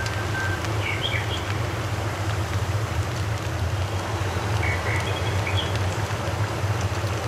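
Steady outdoor background noise with a low rumble, and short bird chirps about a second in and again about five seconds in.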